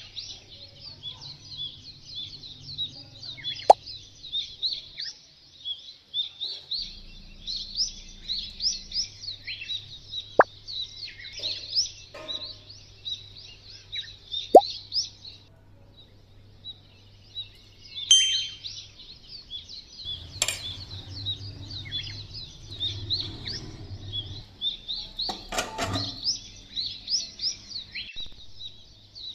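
Many small birds chirping and chattering non-stop, with a short lull about halfway through. A few sharp clicks or plops break in now and then.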